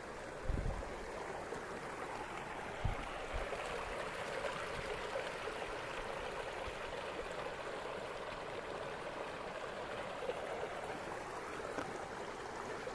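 Small mountain creek running and splashing over rocks, a steady rushing of water. A couple of short low thumps near the start.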